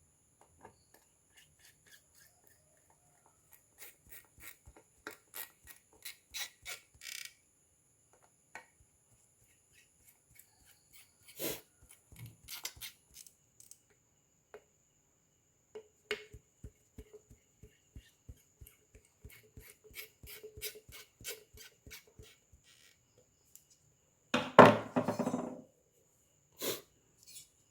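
Small clicks and taps of a graphics card and its metal parts and tools being handled, with a run of quick, even ticks midway and one louder clatter near the end.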